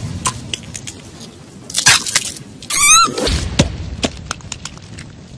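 Edited cartoon sound effects: a short noisy crash about two seconds in, then a brief high warbling squeaky cry followed by a low rumble, with scattered clicks.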